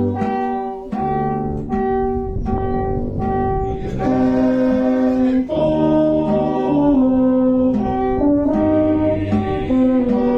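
Town brass band playing: repeated short brass notes, then longer held chords.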